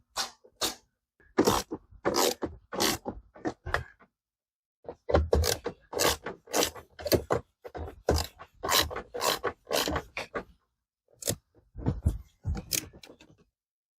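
Ratchet wrench worked in short, quick back-and-forth strokes with a scraping sound, driving in a blower motor mounting bolt. It pauses briefly twice.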